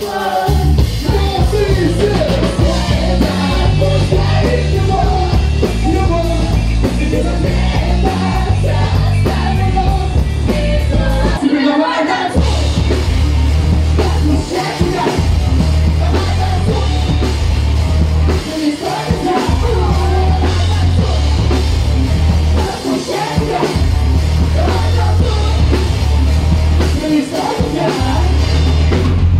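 Live pop cover band playing: singing over drum kit and a heavy bass beat, the bass dropping out for short breaks a few times, longest about twelve seconds in.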